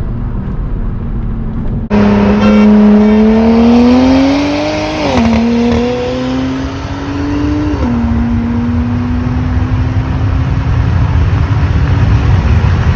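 A car engine pulling hard in a roll race, heard over heavy wind and road noise. The sound gets suddenly louder about two seconds in. The revs then climb, fall at an upshift about five seconds in, climb again and fall at a second upshift near eight seconds, then hold fairly steady.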